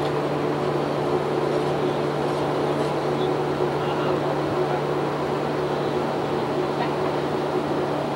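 Steady hum and hiss of a television control room's equipment cooling fans and ventilation, with a constant low drone and no distinct events.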